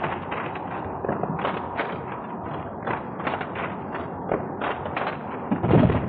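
Rifles clattering in a squad's manual-of-arms drill: a run of sharp knocks and slaps, a few each second, then one heavier thud near the end as the rifle butts come down on the deck. Heard through a dull, narrow 1928 optical film soundtrack.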